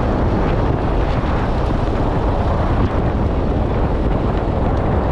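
Steady wind rush buffeting the microphone of a camera moving with road cyclists at speed.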